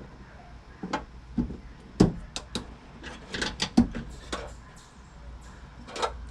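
Hands working on the tailgate latch assembly inside a Honda Pilot's liftgate: a run of sharp plastic and metal clicks and knocks as the latch's rods and connectors are worked loose.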